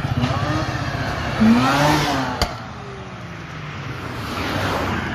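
A car accelerating hard past, its engine note rising and loudest about a second and a half in, then falling away as it drives off. A sharp click about two and a half seconds in, and the engine note rises again near the end.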